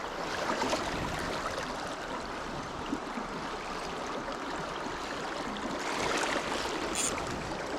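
River water running steadily over stones, with one brief high click about seven seconds in.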